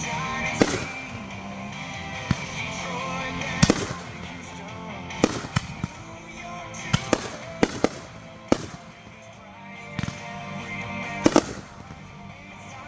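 Fireworks going off in a hand-lit show: about a dozen sharp bangs at uneven intervals, several of them in quick pairs, over background music.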